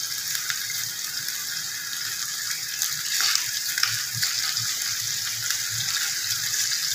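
Hot oil sizzling steadily in a cooking pot with fried onions and spices. The hiss brightens briefly about three seconds in as whole spices are tipped in.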